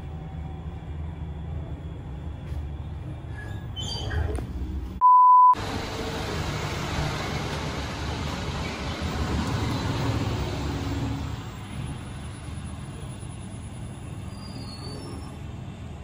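Elevator ride noise: a low steady hum, broken about five seconds in by a loud, short, single-pitched beep. A wider rushing noise then swells for several seconds and eases off.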